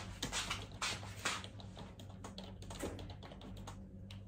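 A run of light, irregular taps and clicks that thin out after about three seconds, over a steady low electrical hum.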